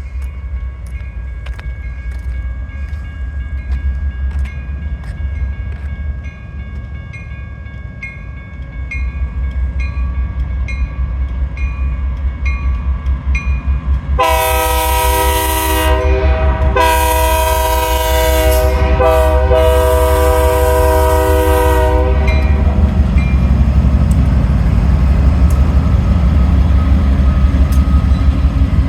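GE wide-cab diesel freight locomotive approaching and passing, its engine rumble growing louder. About halfway through it sounds its multi-tone air horn in the grade-crossing pattern: two long blasts, a short one, then a long one. A bell rings about twice a second through the first half.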